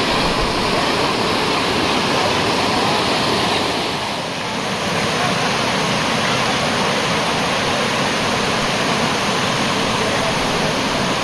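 Waterfall rushing: a loud, steady wash of falling water, easing slightly for a moment about four seconds in.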